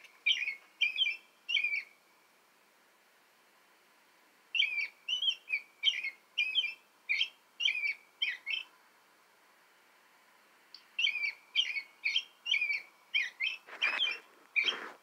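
American robin song played through a tablet's small speaker: three bouts of short whistled phrases, each several notes long, with pauses of a couple of seconds between them.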